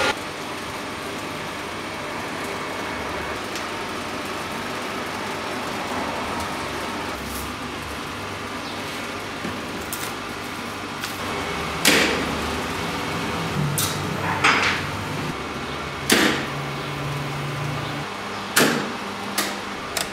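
Glass neon tubing being handled on a workbench: about six sharp clicks and taps in the second half, over a steady hiss.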